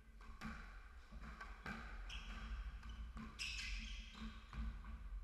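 Squash rally: the ball cracks sharply off rackets and walls, about three hard hits a second or so apart, with short squeaks of court shoes on the wooden floor between them.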